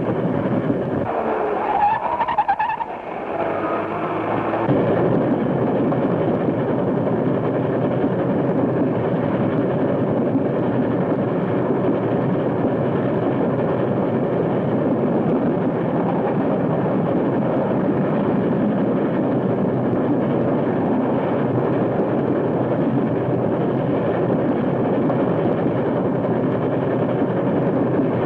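A vehicle running at speed: a steady, loud rumbling noise with no let-up. It is preceded by a few brief wavering pitched sounds about one to three seconds in.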